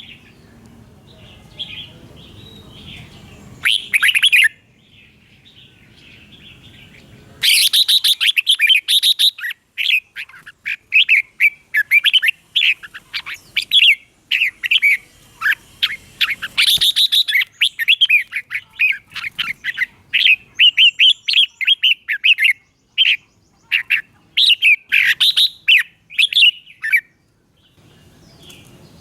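Red-whiskered bulbul singing: soft chattering with one loud phrase about four seconds in, then from about seven seconds a long run of loud, rapid, pitch-sliding phrases one after another until near the end.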